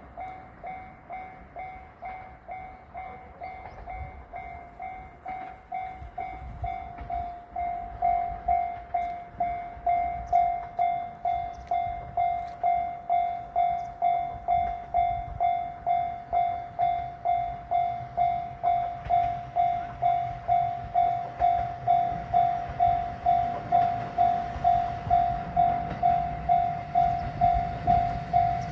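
Japanese railway level-crossing warning bell ringing in an even repeat of about two dings a second, louder from about eight seconds in. A low rumble of an approaching train builds toward the end.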